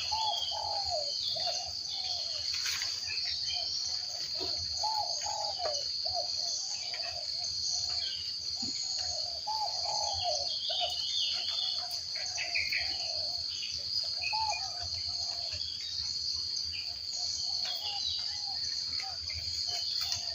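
Insects droning steadily at a high pitch, with a bird calling over and over in short notes that bend in pitch, and a few higher chirps.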